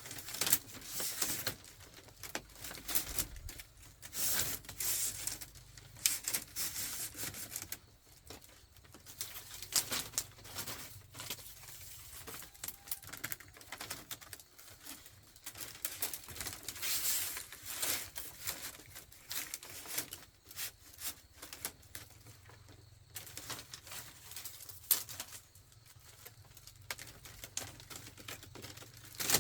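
Hand work on bamboo: irregular clicks, taps and crackles come in dense clusters with short pauses between them.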